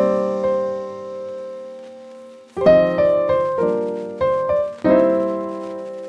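Background piano music. A chord rings and fades, then after a lull about two and a half seconds in comes a short run of chords, the last one left to ring out.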